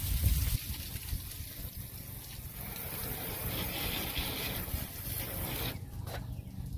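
Garden hose spray nozzle hissing as the water jet hits a boat's hull, stopping suddenly near the end. Wind rumbles on the microphone underneath.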